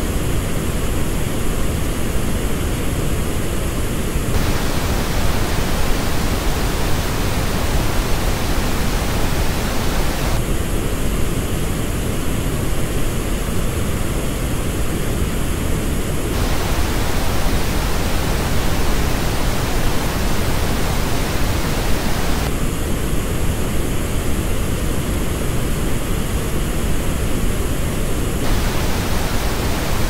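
Pink noise test signal that changes about every six seconds between the flat original and the same noise as reproduced by Focal Bathys headphones. The headphone version has parts of the middle and upper range scooped out.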